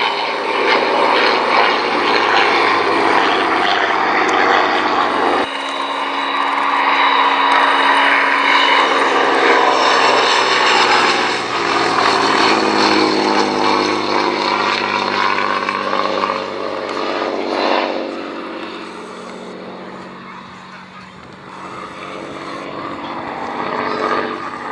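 Vintage piston-engined propeller aircraft flying past, its engine note sliding down in pitch as it goes by. The sound fades about twenty seconds in, then builds again near the end.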